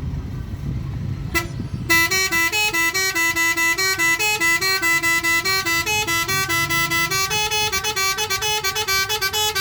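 Indonesian bus 'telolet' multi-tone horn playing a fast tune of stepping notes, starting about two seconds in and quickening toward the end, over the low rumble of the bus's engine.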